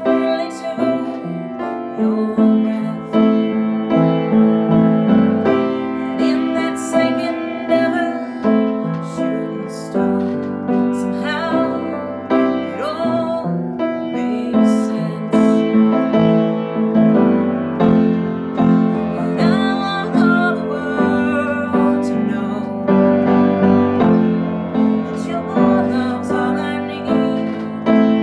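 A woman singing a slow song while accompanying herself with chords on the piano.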